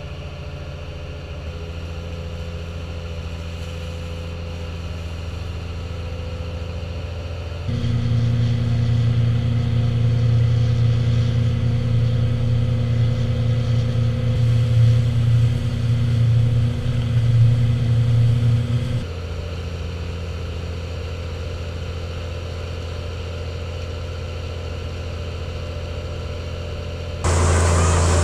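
Engine of a Watermaster amphibious dredger running steadily, heard from on board the machine. The engine note steps up louder and deeper for about ten seconds in the middle, then settles back, and a louder rushing sound starts suddenly near the end.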